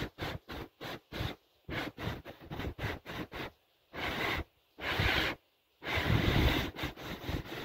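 Clear slime being pressed and pulled on a plastic tray, making sticky squelching pops: a quick run of short ones, then longer squishes from about four seconds in.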